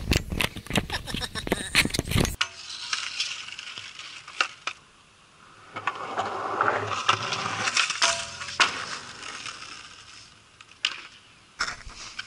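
Skateboard wheels rolling over skatepark concrete, growing louder about six seconds in and stopping sharply about two and a half seconds later, with scattered clicks and knocks of the board. A dense run of clicks and knocks fills the first two seconds.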